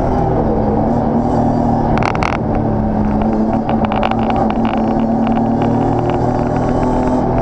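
A BMW race car's engine, heard from inside the cabin, running hard at near-steady revs under racing load. The pitch dips slightly just after the start and climbs again near the end. Sharp clattering knocks come about two seconds in and again in the middle.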